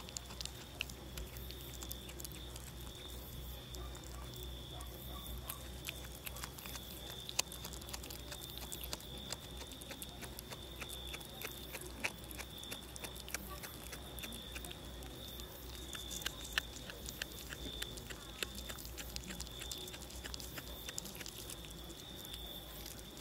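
Tabby kitten chewing a freshly caught mouse: many small irregular crunching clicks, over a steady high-pitched tone.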